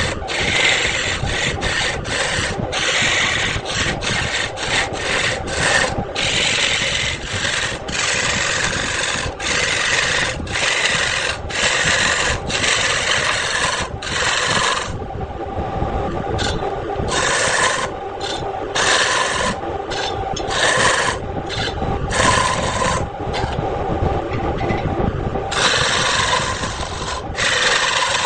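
Wood lathe running with a steady hum while a turning tool cuts into the spinning wood in repeated passes. The scraping hiss of the cut starts and stops every second or so, with shorter strokes in the middle.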